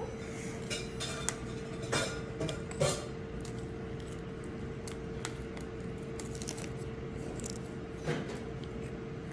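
A spoon scraping and clicking against the shell of a boiled balut egg as it scoops out the inside: a few short sharp clicks, several between about one and three seconds in and one more near the end, over a steady background hum.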